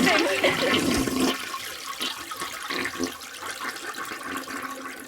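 Toilet flushing: a rush of water that is loudest at the start and fades away steadily.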